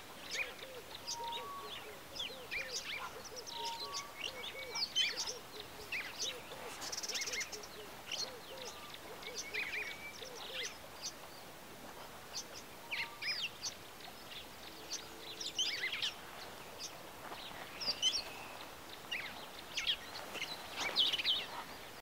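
Birds calling outdoors: many short, high chirps and whistles scattered throughout, over a run of low, evenly repeated notes in the first half and a brief dense trill about seven seconds in.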